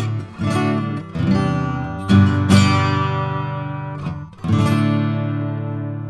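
Acoustic guitar strumming a handful of chords, the last struck about four and a half seconds in and left ringing as it fades. It is heard through the Neold U2A opto compressor plugin with its aging dial, which emulates wear of the T4B opto cell, set at 30%.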